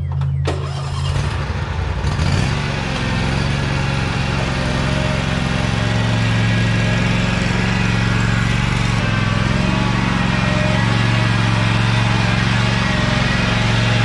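Small engine running steadily, growing louder and hissier from about two seconds in.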